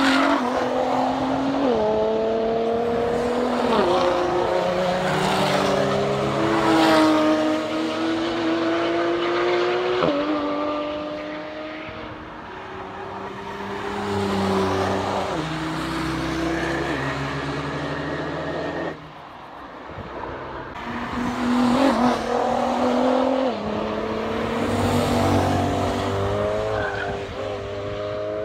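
Track-day cars passing at speed one after another, their engines climbing in pitch under full throttle and dropping back at each upshift.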